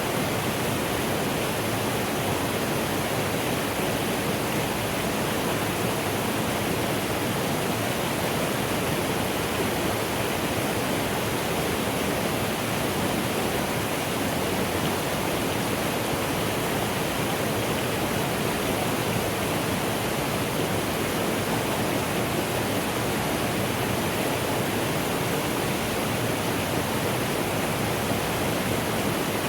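Mountain stream flowing, a steady, unbroken rush of water.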